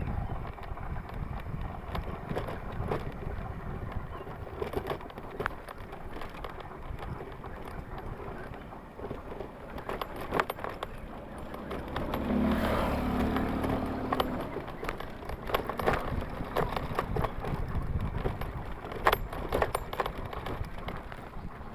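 Motorbike ride over a rough track: a steady low rumble with scattered rattles and knocks, and an engine hum that comes to the fore for a couple of seconds about halfway through.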